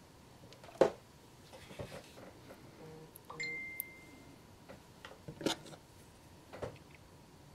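Scattered light clicks and taps of small parts and tape being handled on a workbench, the sharpest about a second in, with a brief steady high beep-like tone near the middle.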